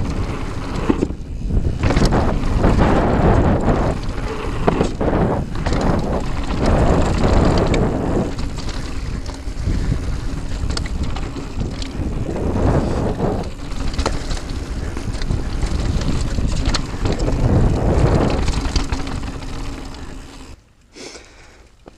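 Mountain bike descending a dirt and gravel trail at speed: wind buffeting the microphone over the rumble of the tyres, with frequent knocks and rattles from bumps in the trail. The noise drops away sharply for about a second near the end.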